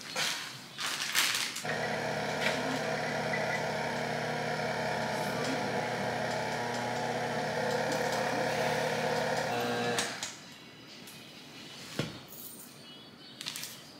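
Tilt-head stand mixer running steadily while mixing cake batter. It starts about two seconds in and cuts off about ten seconds in. A sharp knock follows about two seconds later.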